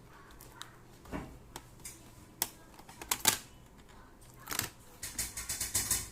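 Hands working on a Lenovo G40-30 laptop's plastic case and parts: scattered clicks and scrapes, then a quick run of clicks near the end.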